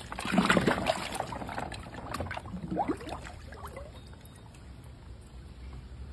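Ice-bath water sloshing and splashing as a man dunks his head under, busiest over the first four seconds and then settling.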